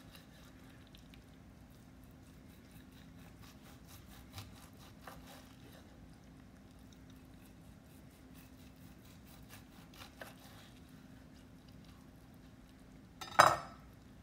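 Long knife slicing through a cooked beef roast on a wooden cutting board: faint sawing strokes for about ten seconds, then one loud clatter near the end as the knife is set down on the board. A faint steady hum runs underneath.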